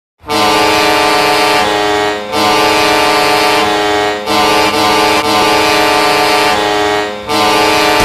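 Toronto Maple Leafs hockey goal horn blasting a loud, steady, many-toned chord in four long blasts with short breaks between them.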